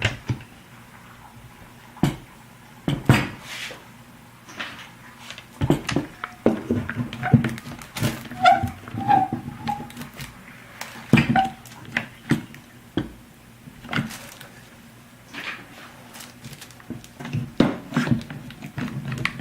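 Large quick-grip bar clamps being handled and ratcheted tight onto a two-part mold, with irregular clicks, knocks and clatter.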